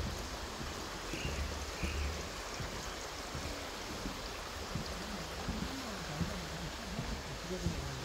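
Steady rushing of a forest stream, with two short bird chirps about a second and two seconds in.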